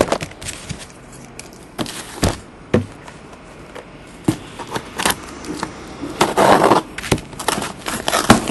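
Cardboard shipping case being handled and opened with scissors: scattered knocks and clicks of the cardboard against the table, with a longer scrape or tear of the cardboard about six seconds in.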